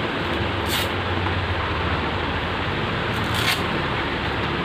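A plastic-shelled elbow guard with fabric straps being handled, giving short rasping rustles twice over a steady background hiss.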